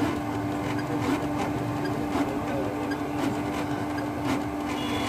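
Canon G-series ink-tank printer running its ink-charging cycle, the pump drawing ink from the tanks through the tubes: a steady hum with a soft tick about twice a second.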